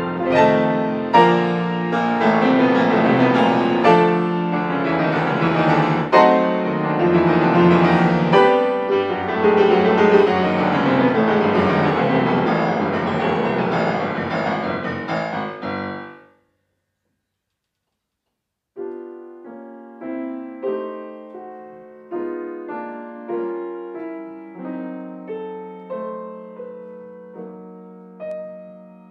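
Grand piano played loudly with dense chords and fast runs, which die away into complete silence about 16 seconds in. A couple of seconds later a quiet passage begins, with separate notes struck at an even, moderate pace.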